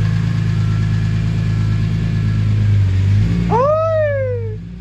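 BMW S54 inline-six engine idling steadily. About three and a half seconds in, a short high cry rises and then falls in pitch over the running engine.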